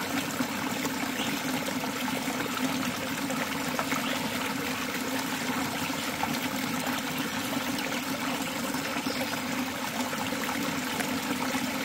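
Water running steadily down a small hose-fed gold sluice box and spilling into a pan, with a steady low hum underneath.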